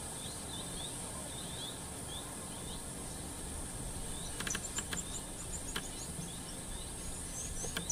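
Outdoor ambience: a steady high-pitched insect drone with short bird chirps over it, and a quick run of higher bird notes about halfway through.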